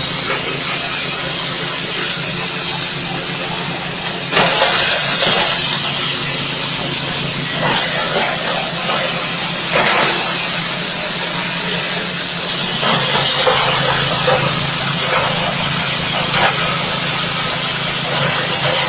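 A small 6.5 hp engine running steadily, driving a straw chopper and grinding machine, with louder rushing surges every few seconds.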